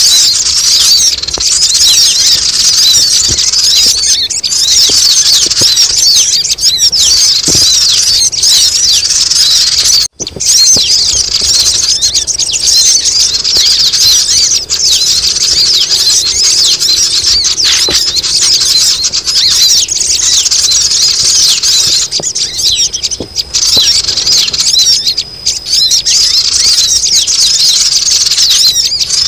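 A dense, loud, high-pitched chorus of many sogon (crimson sunbirds) chattering and twittering nonstop, a bird-lure recording meant to draw wild sogon down. It breaks off for a moment about a third of the way through, then carries on.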